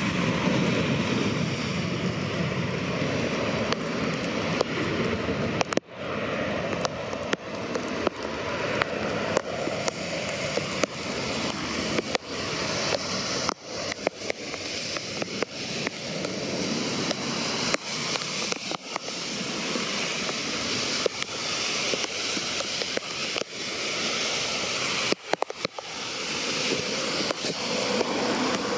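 Heavy pouring rain: a steady, dense hiss with many sharp ticks of drops striking close by.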